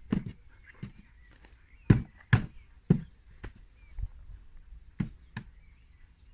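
A series of irregular sharp thuds and knocks, about ten in all and loudest around the middle, with faint bird chirps in the background.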